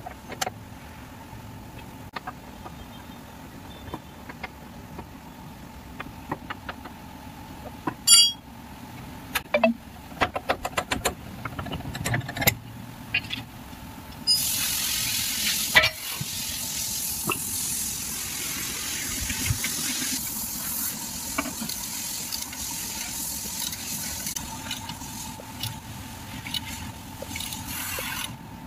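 Metal clinks and taps of a ring spanner on the bolts of a Maruti Suzuki Alto's rear suspension, with one loud metallic clang about eight seconds in and a quick run of knocks after it. About halfway a steady hiss sets in and runs until just before the end.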